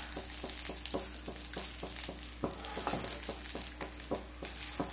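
Wooden spatula scraping and tapping a non-stick pan as rice and vegetables are stirred and tossed, about four or five quick strokes a second, over a light sizzle from the hot food.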